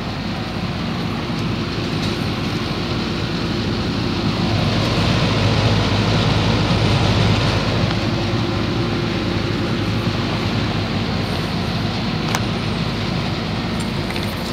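1969 Lennox central air-conditioner condensing unit running: a steady compressor hum under the rush of the condenser fan. It grows louder about four seconds in and eases back after about eight seconds.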